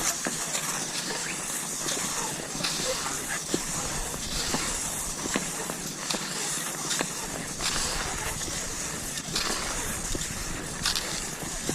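Cross-country skis sliding over snow with a steady hiss, broken by frequent short crunches and clicks of strides and pole plants.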